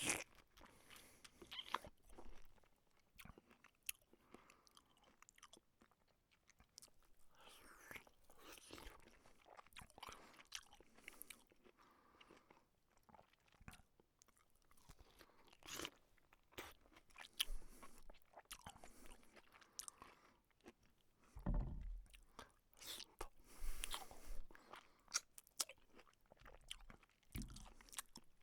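A person eating with the mouth open: irregular chewing, crunching and wet smacking, with slurps between bites. A few louder, deeper mouth sounds come about three-quarters of the way through.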